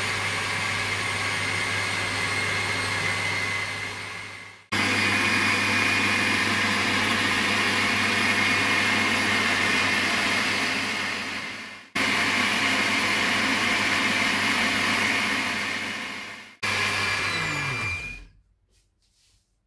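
Homtiky countertop blender running at speed, liquidising oat flakes soaked overnight in water into oat milk. The steady motor noise breaks off and picks straight up again three times, then winds down with a falling pitch and stops near the end.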